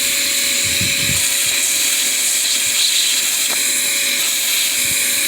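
Steady, loud buzzing of many honeybees around an opened hive, a dense high hiss with a thin steady whine running through it, with a faint handling knock about a second in.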